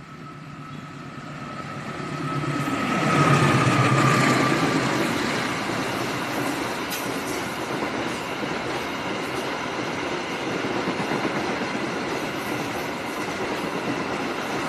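Diesel locomotive hauling a container freight train passes at speed. Its engine and a steady whine grow louder, peak about three to four seconds in, and the whine drops in pitch as the engine goes by. The container wagons follow with a steady rolling rumble and clatter of wheels on the rails.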